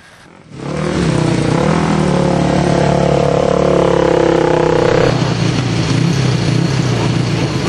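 Single-cylinder racing motorcycle engines being push-started: one catches about half a second in and runs loud with throttle blips. About five seconds in the note changes abruptly as a second single-cylinder race bike is push-started.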